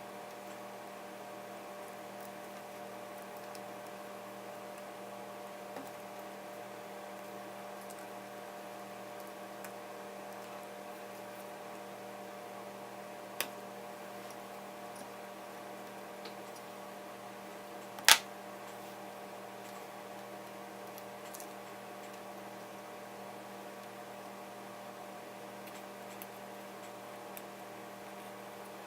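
Steady electrical hum with a few light clicks; one sharp click about eighteen seconds in is the loudest sound.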